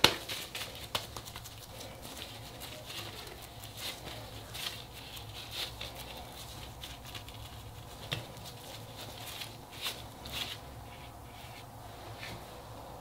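Hands in plastic gloves scooping and patting ground pork and beef mince into a thick burger patty: soft, irregular squelches and pats with the crinkle of the gloves.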